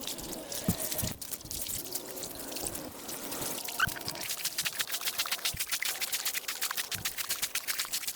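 Water pouring and splashing, with a rapid run of small splashes and clicks from about four seconds in.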